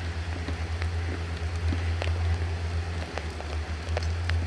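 Light rain pattering, with scattered sharp ticks and a steady low rumble underneath.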